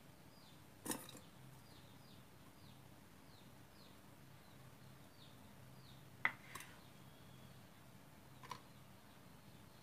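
Light knocks and taps of a knife and boiled eggs on a wooden cutting board as the eggs are halved and the halves set down: four in all, one about a second in and the sharpest a little past the middle. Under them, a faint high chirping repeats a few times a second.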